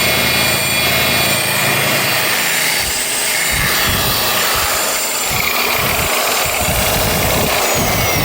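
Electric polisher running on a truck's painted body, buffing off wax. It hums steadily for the first couple of seconds, then gives an uneven low rumbling as the pad is worked over the panel.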